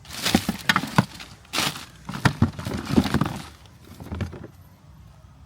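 Crinkly rustling of a bag being rummaged through for tent pegs, with several sharp clicks, dying away about four seconds in.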